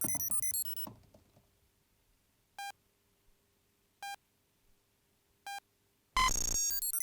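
Electronic computer beeps: a quick run of stepped chirping tones, then three single identical beeps about a second and a half apart, then a loud harsh burst followed by another rapid run of chirps near the end.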